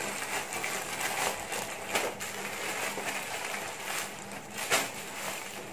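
Plastic courier mailer rustling and crinkling as it is torn open by hand, with a sharper crackle shortly before the end.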